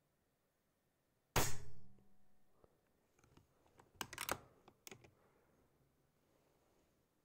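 Altaros .22 PCP air rifle firing one shot about a second in: a single sharp report with a short fading tail. A few seconds later comes a cluster of sharp clicks.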